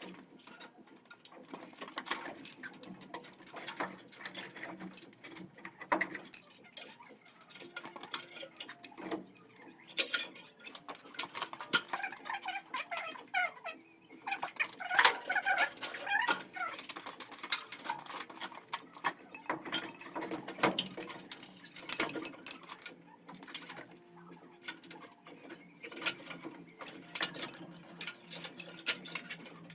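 Irregular clicks, taps and knocks of tools and metal fittings being handled, with a brief wavering squeak in the middle.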